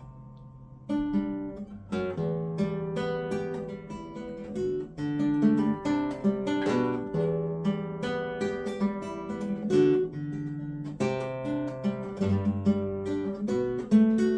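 Guitar played live, a continuous run of picked notes over held bass notes starting about a second in. The playing is a test of hand tremor under new deep brain stimulation settings, and the player hears a little tremor still in it.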